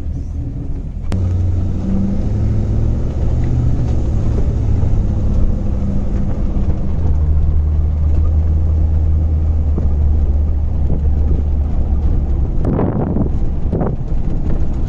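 Swapped-in Corvette LS3 6.2-litre V8 in a Land Rover Defender, heard from inside the cab: the engine gets louder and rises in pitch about a second in as the driver accelerates, then settles into a steady lower drone about halfway through. A few short noisy bursts near the end.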